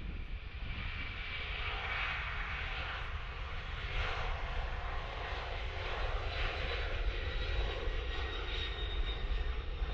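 Jet airliner's engines running at takeoff power: a broad steady roar with a thin high whine, slowly growing louder.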